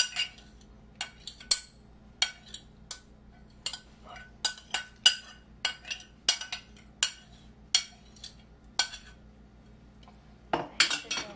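Metal spoon clinking against bowls in sharp, irregular taps while yogurt is scooped and spread over chickpea chaat, with a quick cluster of louder clinks near the end.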